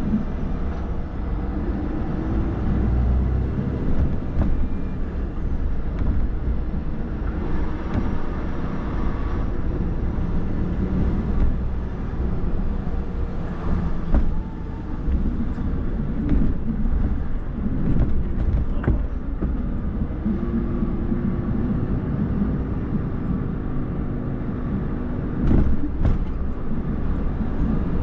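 Steady low rumble of road and tyre noise from a car driving at speed, with a few brief knocks.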